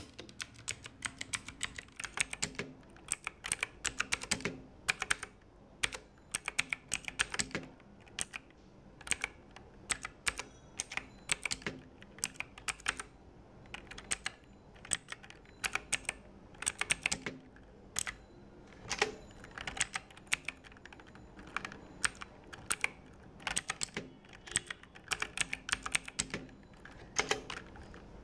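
Typing on a budget mechanical keyboard with clicky blue switches. Sharp key clicks come in quick irregular runs separated by short pauses.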